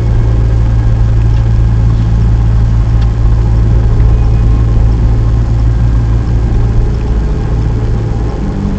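Car being driven: a steady, loud low drone of engine and road noise.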